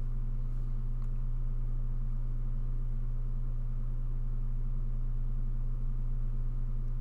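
A steady low hum with no speech, unchanging throughout.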